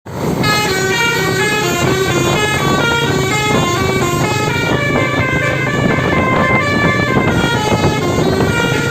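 Indonesian bus telolet horn playing a rapid melody of short, stepped notes, with a low steady rumble beneath.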